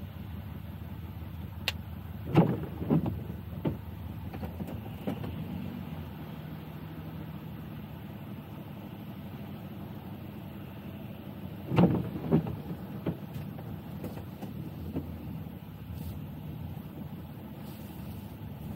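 Car on a wet road heard from inside the cabin: a steady low rumble of engine and tyres, with a few sharp knocks and thumps, loudest about two seconds in and again about twelve seconds in.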